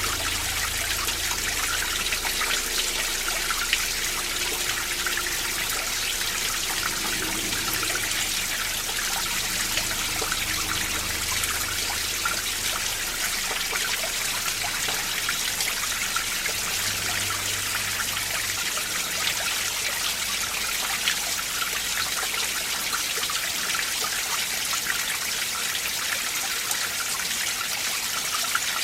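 Mountain stream running steadily over rocks, a continuous rush of water with many small trickles and droplet plinks.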